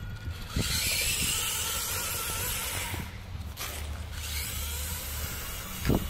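Small electric motor and gearbox of a 1/24-scale Losi Micro rock crawler running as the truck drives, with a low thump near the end.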